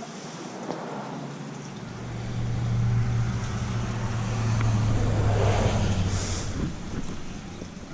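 A car passing by, its low rumble swelling over a couple of seconds and fading away again.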